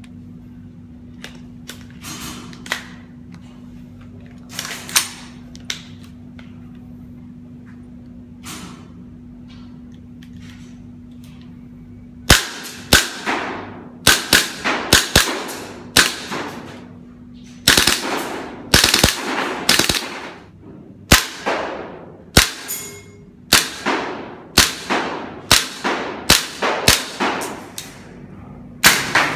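VFC Mk18 Mod1 gas blowback airsoft rifle firing. A few scattered single shots in the first twelve seconds, then from about twelve seconds in, fast strings of sharp shots a fraction of a second apart, with short pauses between strings.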